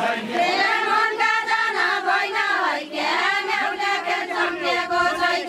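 Group of women singing a deuda folk song together, unaccompanied, in a chant-like melody. The singing breaks briefly about halfway through, then carries on.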